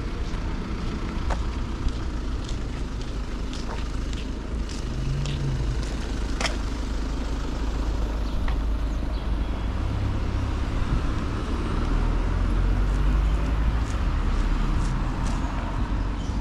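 Outdoor street ambience with a steady low rumble of motor traffic. A vehicle engine grows louder from about ten seconds in, and light clicks are scattered through it.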